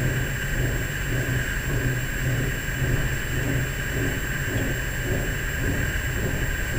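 Unexplained low droning rumble, steady, with an uneven slow throb and a hiss above it.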